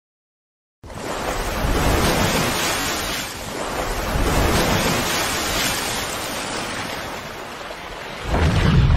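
Rushing, surf-like whoosh sound effect of splashing water. It starts suddenly about a second in, holds steady, and swells louder near the end.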